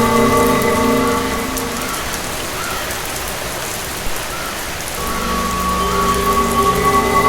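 Steady heavy rain from a haunted-house ambience. Under it runs an eerie drone of sustained tones, which fades out about two seconds in and swells back about five seconds in.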